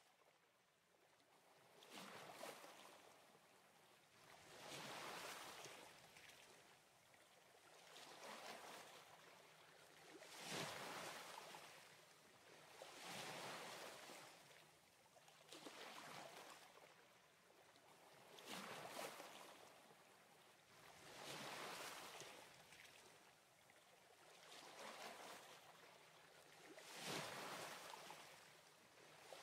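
Small sea waves washing onto a sand-and-pebble beach: a faint rush that swells and draws back about every three seconds.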